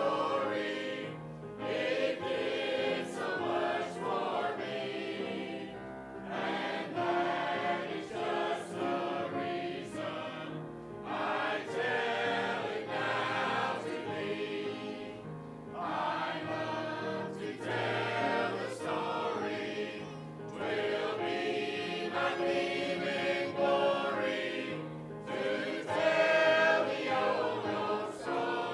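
Church choir of mixed men's and women's voices singing a hymn in phrases with short breaks between them.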